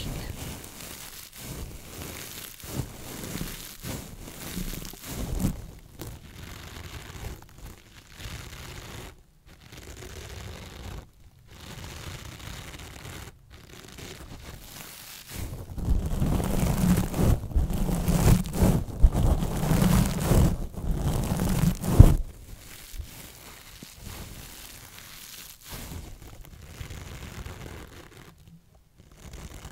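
Gold and silver metal-mesh scouring pads squeezed and rubbed together right at the microphone: a dense crinkling and crackling. It grows louder and fuller from about 16 to 22 seconds in and ends that stretch with a sharp knock.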